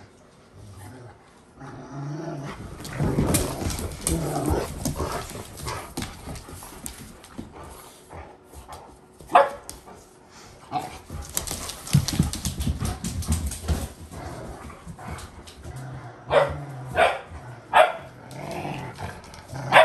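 Adult and puppy Rottweilers playing rough: growling with sharp barks, one single bark about halfway through and a quick run of three barks near the end.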